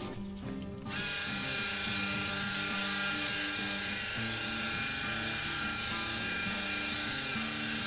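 Hose-fed BBQ spritzer wand misting liquid onto a ham in the smoker. It is a steady hiss that starts about a second in and holds without a break for about seven seconds.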